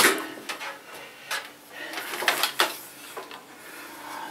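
Irregular knocks and clicks with rustling as power cables and plugs are handled and pulled around a desk and computer tower, about half a dozen sharp knocks spread unevenly through.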